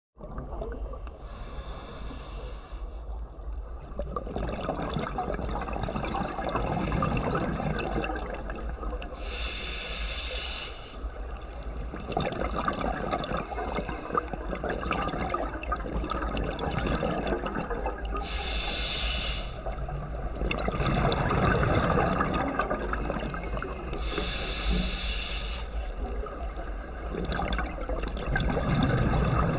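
Scuba diver breathing through a regulator underwater: four short hissing inhalations, each followed by several seconds of bubbling exhaust as the breath is let out.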